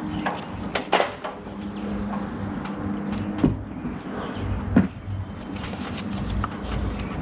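Handling noise at a wooden nest box: a few sharp knocks and clicks as wires and a hand tool are worked into the box, a pair about a second in and single ones around three and a half and five seconds. Under them runs a steady low hum.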